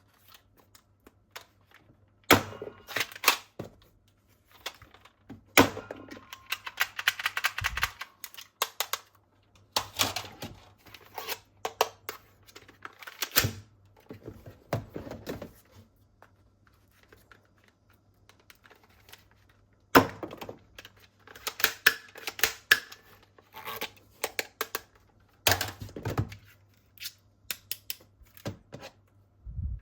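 Plastic toy weapons and their packaging being handled during unboxing: bursts of clicks, knocks and crinkling, with short quiet pauses between them.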